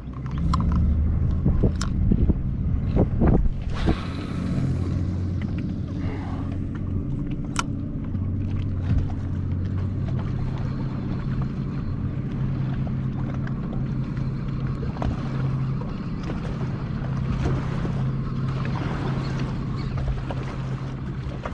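Boat motor running with a steady low hum, with a few sharp knocks in the first few seconds and wind on the microphone.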